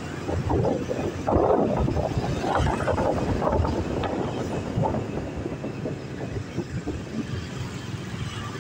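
Wind rush buffeting the microphone and road noise from a moving motorbike, uneven and loudest in the first few seconds.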